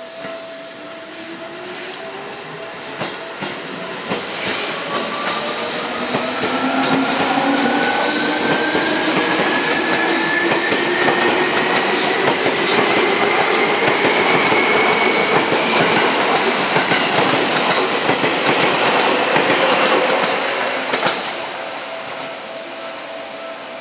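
Electric commuter train pulling away, its motors whining in several rising tones as it gathers speed, with wheels clattering and screeching over the rails and points. It builds up a few seconds in and fades near the end.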